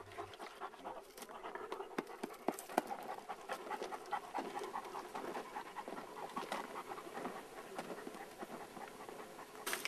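Perdiguero de Burgos hunting dog panting, with irregular crunching footsteps on dry, cloddy soil.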